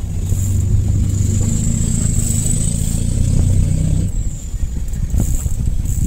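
A motor vehicle's engine running close by, a steady hum with a faint high whine that swells and fades, dropping away about four seconds in.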